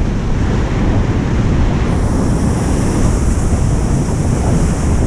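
Ocean surf breaking and washing in foam around the wader, with strong wind buffeting the microphone as a low rumble. The high hiss of the wash grows louder about two seconds in.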